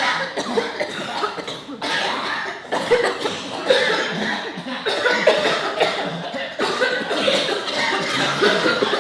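A person coughing over and over in a long, unbroken coughing fit.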